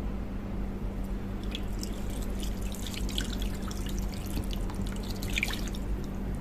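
Water dripping in many small, scattered drops from about a second and a half in until near the end, over a steady low hum.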